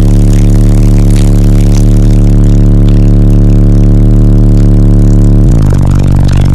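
Ten 15-inch PSI Platform 3 subwoofers in a walled-off fourth-order bandpass box playing very loud sustained ultra-low bass notes, heard inside the SUV's cabin. About five and a half seconds in, the bass jumps abruptly to a different, deeper note.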